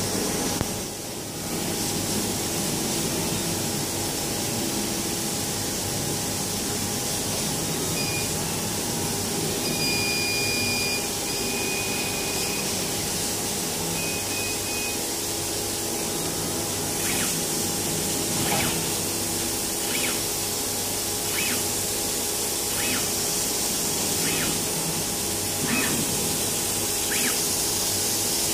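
Laser cutting machine running while cutting printed fabric: a steady hiss of moving air with a faint hum. A few short high tones sound about a third of the way in, and light ticks come about every second and a half through the second half.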